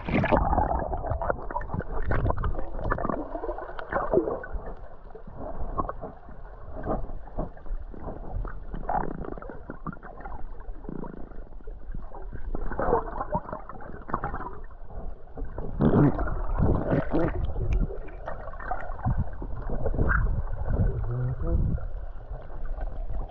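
Muffled gurgling and sloshing of sea water around a microphone under the water, in irregular surges with no sound above a low ceiling.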